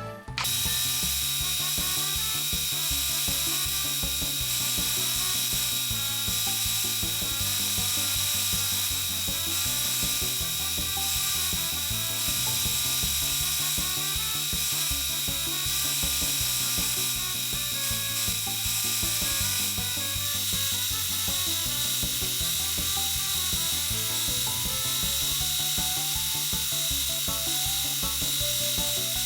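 Background music with a steady beat over a continuous rasping noise of material being worked with a tool, with a steady thin whine running through it.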